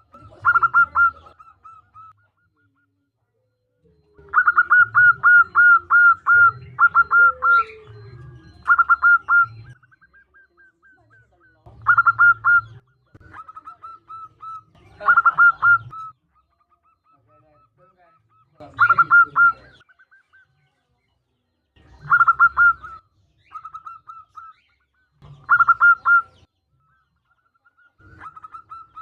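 Zebra dove (perkutut) cooing: loud clusters of quick, clipped coos repeat every three to four seconds, the longest about four seconds in, with softer fast runs of notes at the same pitch between them. It is presented as a female calling to males, a lure call meant to set males singing.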